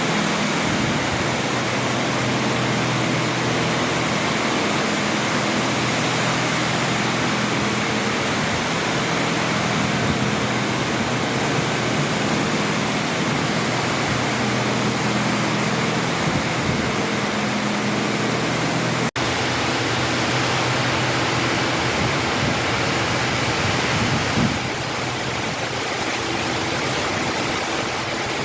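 Heavy rain pouring steadily in a strong summer storm, a dense, even rush with a faint low hum beneath it. The sound cuts out for an instant about two-thirds of the way through and eases a little near the end.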